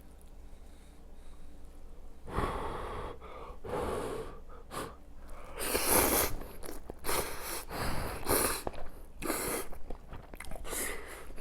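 Hot kalguksu noodles being slurped, a run of short noisy slurps starting about two seconds in.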